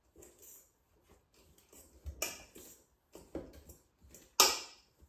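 A fork stirring shredded potato and onion in a stainless steel mixing bowl. It scrapes softly and clinks against the metal, with three louder ringing clinks about two, three and four seconds in, the last the loudest.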